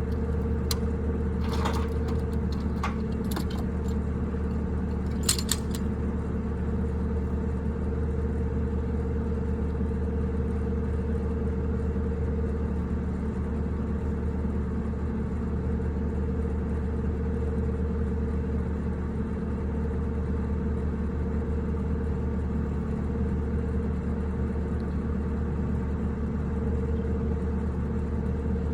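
An engine running steadily with a constant low rumble and an even hum. A few sharp clicks and a light rattle come in the first few seconds.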